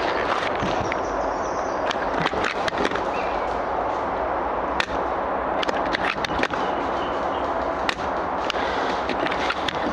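Airsoft guns firing during a skirmish: scattered sharp cracks and clicks, some in quick runs, over a steady background noise.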